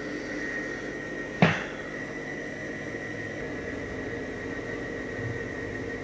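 A steady machine hum with a faint high whine, as of a small fan or motor running, and a single sharp knock about one and a half seconds in.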